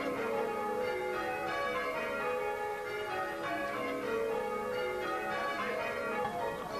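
A ring of church bells rung full-circle by ringers on the ropes, the strikes following one another in a continuous, overlapping peal.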